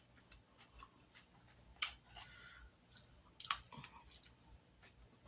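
A person chewing food in small, soft mouthfuls, with scattered sharp clicks and crunches, the loudest about two seconds in and again about three and a half seconds in.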